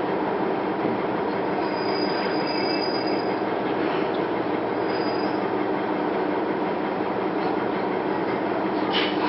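Diesel railcar running on the Iiyama Line, heard from inside the car: a steady rumble of wheels on rail, with faint, thin wheel squeals now and then.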